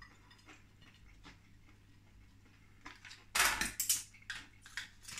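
Quiet handling at first, then, from about three seconds in, kitchen scissors clattering and snipping open a plastic sauce sachet, with rustling plastic and a few sharp clicks.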